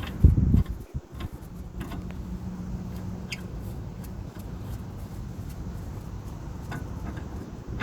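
Steady low rumble with a few scattered light metallic clicks of bolts and hand tools being handled while a brake caliper bracket is bolted on, and a louder low knock about a quarter second in.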